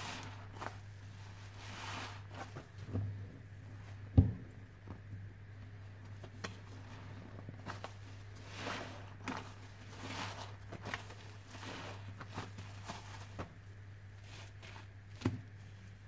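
Wet kitchen sponges being squeezed and worked in sudsy detergent water: soft, irregular squishing and foam crackle, over a low steady hum. A sharp knock stands out about four seconds in, and a smaller one near the end.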